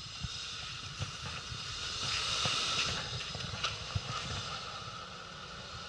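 A Suzuki Jimny off-roader working through a slushy, muddy snow rut. A steady engine rumble runs throughout, a hissing rush swells about two seconds in and fades a second later, and two short knocks follow.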